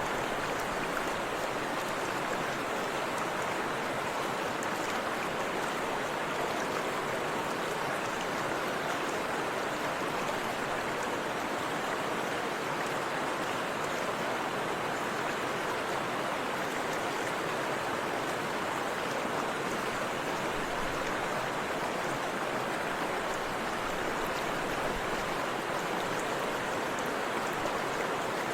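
Forest river flowing over a waterfall: a steady, even rush of water.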